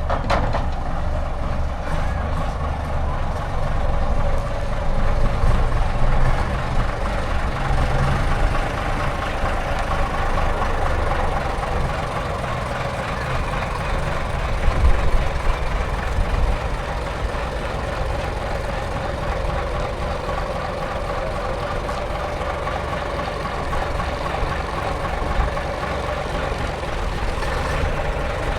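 Diesel bus engine running steadily at idle, a continuous low rumble.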